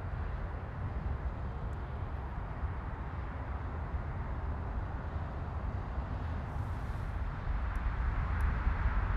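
Regional jet's twin rear-mounted turbofan engines at takeoff thrust through the takeoff roll and lift-off: a steady, deep rumbling rush with no clear tones, growing a little louder near the end.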